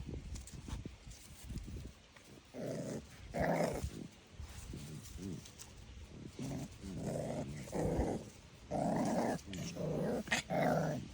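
Pit bull puppy growling in a string of short growls, starting about two seconds in.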